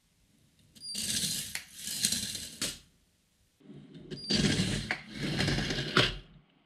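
K'nex roller-coaster car rattling along its plastic track and through a homemade linear synchronous motor, in two runs of about two seconds each. Each run opens with a brief high tone.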